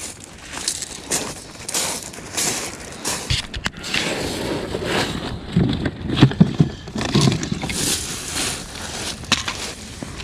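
Pebbles and broken shells of a shingle beach crunching irregularly underfoot and under the knees as someone moves and shifts about, mixed with gear being handled, with a few heavier thuds in the middle.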